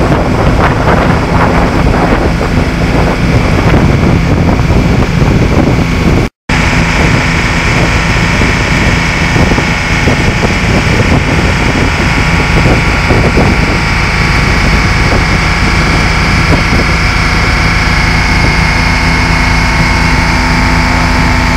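Boat engine running steadily under way, with wind buffeting the microphone. The sound cuts out for a moment about six seconds in.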